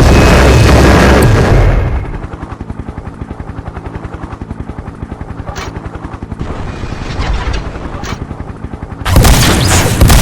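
Battle sound effects. A loud blast dies away about two seconds in, then comes a rapid, even rattle like machine-gun fire, and another loud blast breaks in near the end.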